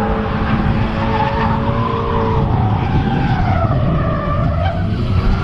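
Drift car sliding sideways on the throttle, its engine held at high revs while the rear tires squeal and spin. The engine note wavers, dipping about halfway through and climbing again.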